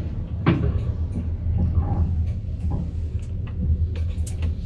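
Passenger lift car travelling down between floors: a steady low rumble with scattered light clicks and rattles.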